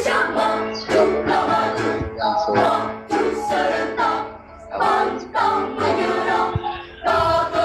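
Children's choir singing together in short, rhythmic phrases, played back from a video recording.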